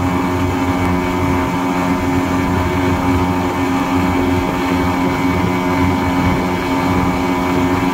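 Water-jet outboard motor of a RIB boat running steadily at planing speed, with a constant engine note over a steady rush of wind and water.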